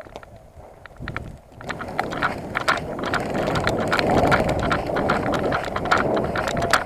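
A player on the move: footsteps at a run with gear rattling and wind rushing over the microphone, building up about a second in, with many sharp clicks throughout.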